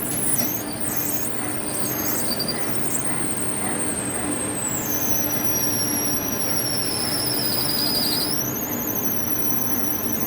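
Lathe running while a 5 mm drill bit in the tailstock bores into a metal nut blank. The bit gives a high-pitched, wavering squeal over the steady hum of the machine; the squeal drops in pitch about halfway through, sinks slowly, then jumps back up near the end.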